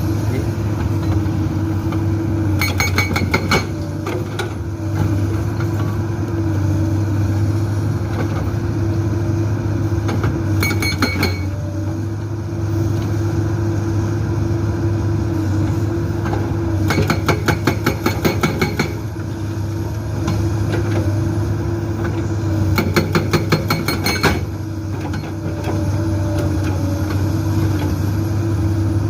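Hydraulic breaker hammering on rock in four short bursts of rapid, evenly spaced blows. Under it, the excavator's six-cylinder diesel engine runs steadily throughout.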